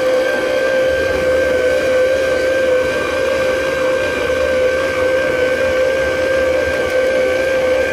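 Electric kitchen mixer running steadily while mixing dough, a loud, constant motor whine with no change in speed. A low hum joins it about a second in.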